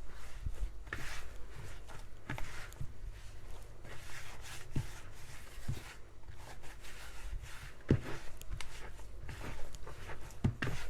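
Hands mixing and kneading pizza dough, with irregular soft thumps and a few sharper knocks.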